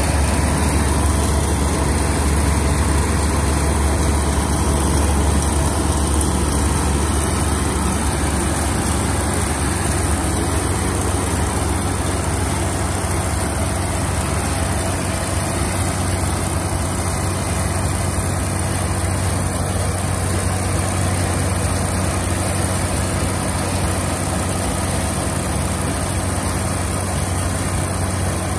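Rice combine harvester running steadily close by, a loud, even engine drone with a strong low hum.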